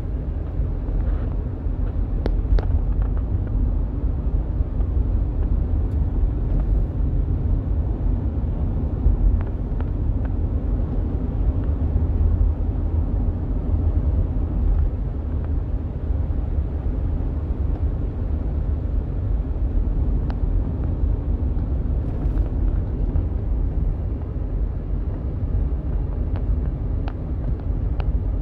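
Steady low rumble of a car driving at about 45 mph, heard from inside the cabin, with a few faint ticks scattered through it.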